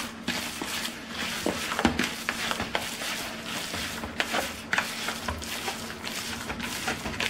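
A bare hand squishing and kneading raw ground chicken mixed with egg whites in a large bowl: an irregular run of wet squelches and soft smacks.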